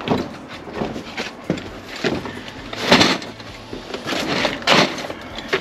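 Footsteps on wooden scaffold boards, with irregular knocks, scrapes and rustling as a cardboard box of plastic insulation fixings is handled and set down.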